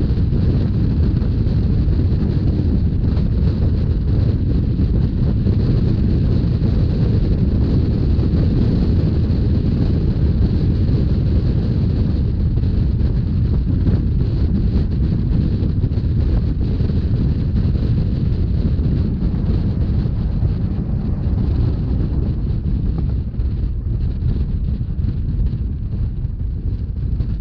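Wind rushing over the microphone on board a moving Rhaetian Railway narrow-gauge train, over the train's steady running noise; it eases slightly near the end.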